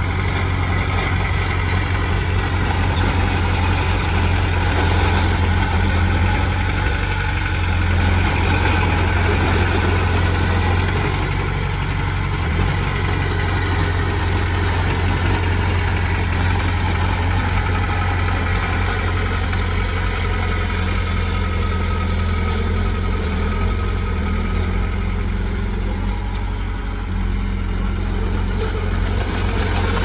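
Komatsu D20P bulldozer's diesel engine running steadily with a deep, even drone.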